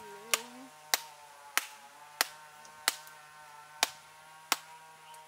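A knife blade knocking repeatedly on the hard shell of a round fruit to crack it open: seven sharp knocks, a little under a second apart.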